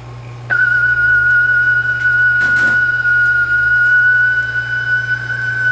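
Sony TC-200 reel-to-reel tape recorder playing back a steady test tone from tape through its speaker. The tone starts about half a second in and holds one pitch with a slight waver.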